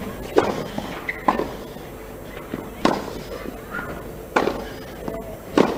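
Tennis ball struck by rackets on a clay court: a serve followed by a baseline rally. Five sharp hits come roughly every one to one and a half seconds.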